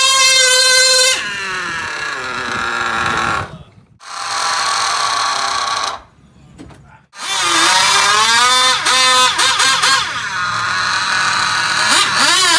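Electric motors of a micro mini pulling tractor whining at a steady high pitch, then wavering and sagging in pitch under load as it drags the weight-transfer sled along the table track. The whine cuts out a little over three and a half seconds in and again about six seconds in, then starts again and rises back to a steady whine near the end.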